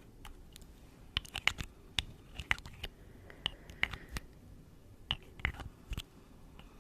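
ASMR mouth sounds close to the microphone: irregular sharp clicks and smacks, several in quick clusters with short gaps between.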